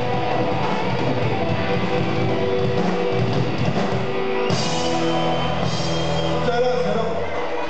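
Rock band playing live with electric guitars, bass and drums. About four and a half seconds in, the band moves into long held notes under crashing cymbals, a closing chord.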